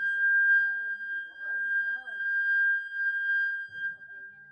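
PA microphone feedback: a steady high-pitched ringing tone with faint voices beneath it, fading out near the end.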